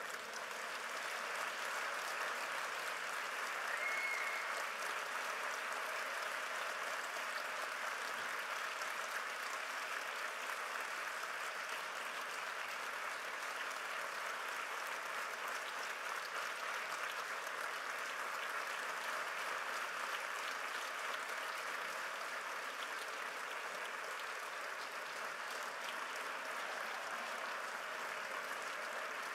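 Sustained applause from a hall audience and the people on stage, swelling in the first couple of seconds and then holding steady.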